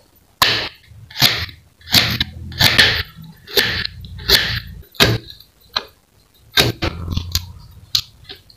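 Kitchen knife slicing garlic, shallots and spring onion on a plastic cutting board: about a dozen short crisp cuts, each ending in a sharp knock of the blade on the board, irregular at one or two a second.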